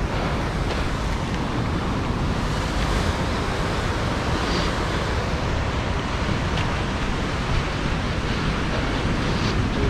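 Steady rush of ocean surf mixed with wind buffeting the microphone, a constant low rumble with no distinct events.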